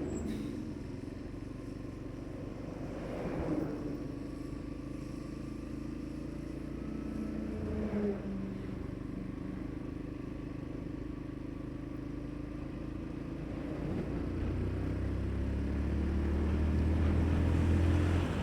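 Motorcycle running steadily along a road, heard from the rider's own camera, with traffic around it; short swells about three and eight seconds in, and a deep low rumble that builds and grows louder over the last few seconds.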